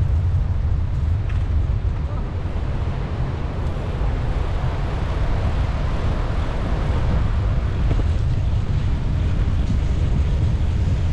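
Wind buffeting the microphone of a GoPro Hero 9 action camera on a moving bicycle: a steady low rumble with a hiss over it.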